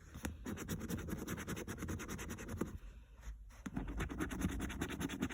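A coin or scratcher rubbing the silver latex coating off a scratchcard in quick back-and-forth strokes, with a short pause a little past halfway.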